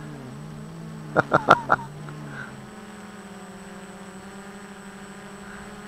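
Quadcopter motors and propellers buzzing in flight. The pitch wavers for the first two seconds or so and then holds steady. A few short sharp sounds come a little over a second in.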